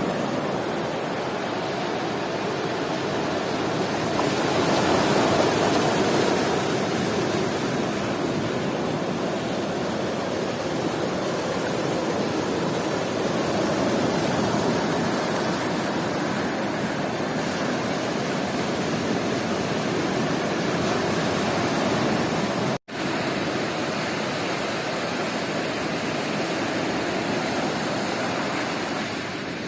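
Sea surf washing onto a beach: a steady rush of noise that swells and eases slowly, with a momentary cut-out in the audio about two-thirds of the way through.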